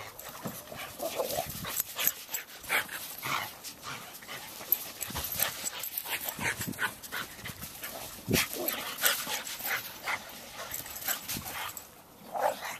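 A boxer and a cattle-dog mix at rough play: short dog vocal sounds mixed with many brief scuffs and knocks, in an uneven patter that runs on throughout.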